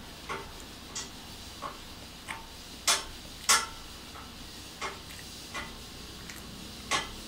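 A series of short, sharp clicks, about one every two-thirds of a second with a few skipped beats, the loudest two about three seconds in, over a low room hum.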